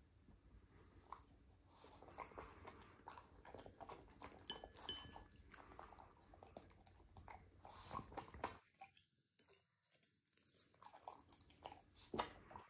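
French bulldog chewing and crunching raw vegetable pieces such as carrot, fed from chopsticks: a quiet run of wet mouth clicks and crunches that eases off about two-thirds of the way through, with one sharper click near the end.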